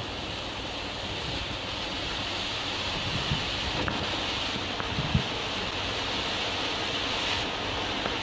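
Three RGS Angry Volcano fountain fireworks burning together: a steady hissing rush of sparks, with a few faint pops.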